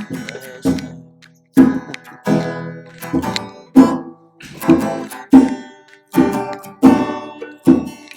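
Acoustic guitar strummed chords in a slow, steady rhythm, about one strum every three-quarters of a second, each ringing out before the next.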